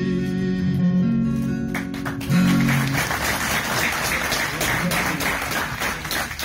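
An acoustic guitar song ends on a held final note, then the audience breaks into applause about two and a half seconds in.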